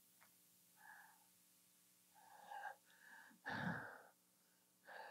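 Near silence, broken by a few short, faint breaths and mouth sounds picked up by a handheld microphone. The loudest comes a little past halfway.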